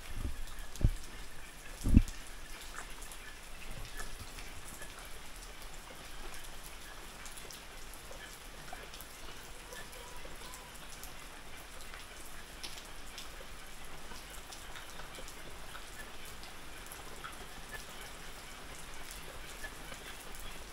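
Steady light rain pattering and dripping, with scattered small drip ticks. Two short dull thumps near the start, the second louder.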